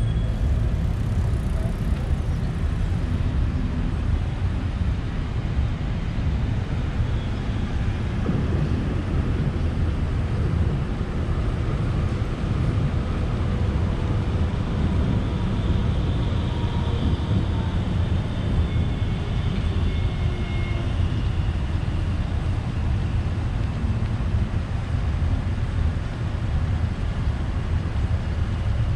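Street traffic from a slow, nearly stopped line of hearses and cars, their engines running as they creep along, with a steady low rumble throughout. A faint higher whine comes in about halfway through.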